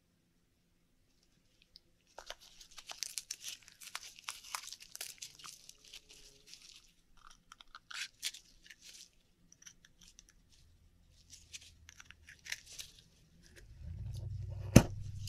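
Crinkling, crunching and tearing handling noises from an Akoya oyster being opened, coming in spells of a few seconds, with one sharp click near the end.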